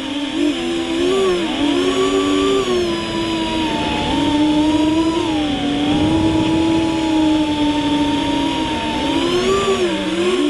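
FPV quadcopter's brushless motors whining, several close pitches rising and falling together as the throttle changes.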